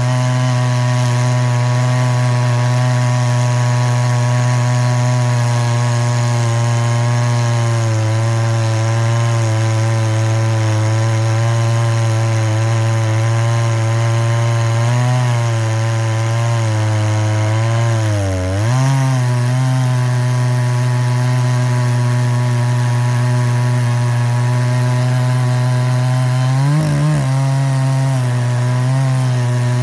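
Dremel rotary tool running steadily as it grinds the rakers and cutters of a chainsaw chain, its motor pitch dipping briefly a few times as it is pressed into the metal.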